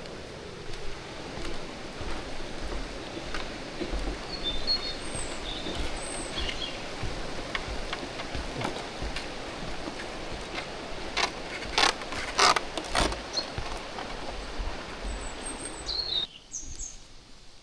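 Steady rush of flowing water at a forest waterfall, with short high bird chirps here and there. A cluster of four or five sharp clicks comes about twelve seconds in, and the water noise drops away suddenly near the end.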